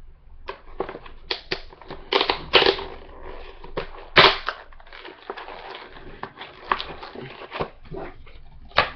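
Cardboard box and plastic packaging being pried open by hand, with irregular crackles, rustles and sharp snaps, the loudest about four seconds in.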